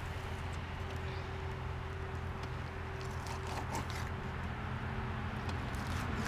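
Catfish skin being pulled off the flesh by hand, heard as a few faint scrapes and clicks over a steady low background hum.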